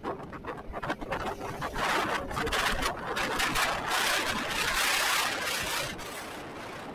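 Wind and road noise on the microphone of a moving motorcycle, choppy at first, then swelling into a louder steady rush from about two seconds in and easing off again near the end.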